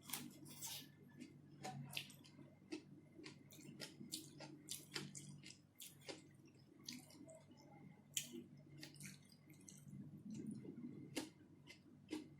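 Close-up eating sounds of someone chewing shrimp and rice: wet, squishy mouth noises with many sharp, irregular clicks and smacks, over a low steady hum.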